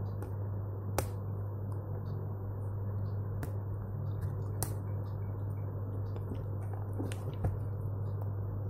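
Scattered sharp clicks and scratches as a thin pointed tool slits the seal stickers on a cardboard phone box and the box is handled, over a steady low hum that cuts off suddenly at the end.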